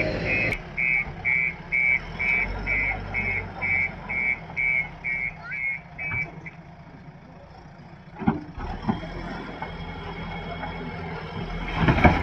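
Backhoe loader's reversing alarm beeping about twice a second over its running diesel engine, stopping about six seconds in. A few sharp knocks follow near the end.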